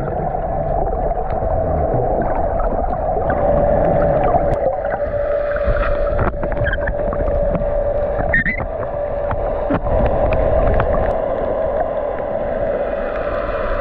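Underwater sound picked up by a GoPro in its housing: a muffled low rumble of moving water with a steady droning hum and scattered faint clicks, briefly disturbed a little past the middle.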